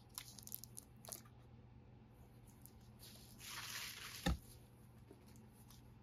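Faint handling noise from a hinged Zippo presentation box: a few light clicks, then a second of rustling that ends in one sharp thump about four seconds in.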